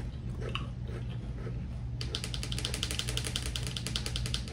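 Potato chips being chewed: rapid, dense crisp crunching from about two seconds in until just before the end, over a steady low hum.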